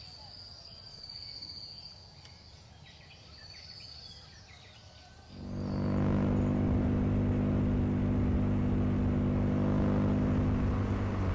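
Outdoor ambience with a steady high-pitched insect buzz. About five seconds in it gives way suddenly to a much louder, steady vehicle engine hum at constant speed.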